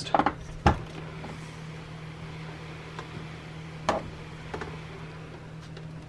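A few knocks and clicks as an RV screen door is pulled shut by its bar handle. The loudest knock comes just under a second in and another about four seconds in, over a steady low hum.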